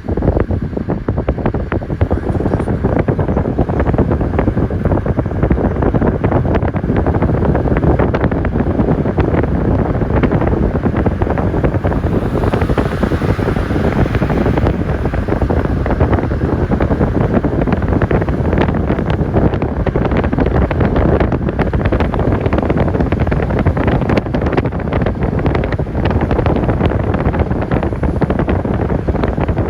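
Wind buffeting the microphone at an open window of a moving car, with steady loud rumbling road noise underneath. A brighter hiss rises for a couple of seconds about twelve seconds in.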